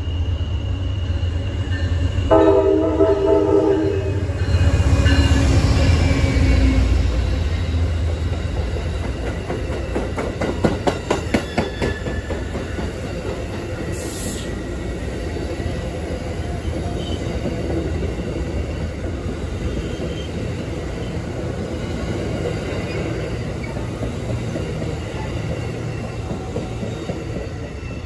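Amtrak passenger train passing close by: the end of one horn blast, then a second horn blast about two seconds in, followed by the diesel locomotive going past with a loud low rumble. Its Amfleet passenger cars then roll by, their wheels clicking rhythmically over the rail joints, and the rolling sound eases off toward the end.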